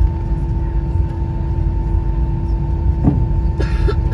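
Cabin noise of an Airbus A320 taxiing to the gate: a steady low rumble with two steady hum tones, and a brief short sound near the end.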